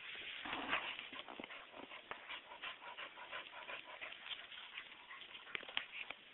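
Keeshond chewing and tearing at grass: a run of short, irregular crunching clicks.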